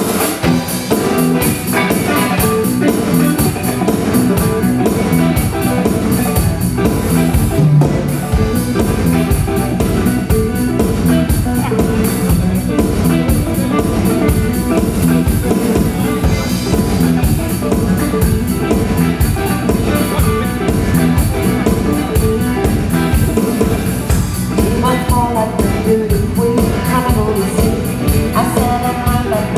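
Live rock band playing with electric guitar and drum kit over a steady beat; a singer comes in near the end.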